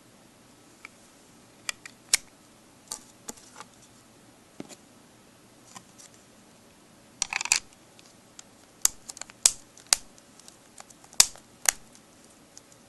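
Sharp irregular clicks and taps of a clear hard plastic Gear4 iceBox Pro case being handled and pressed onto an iPhone, with a short rattling clatter of plastic about halfway through.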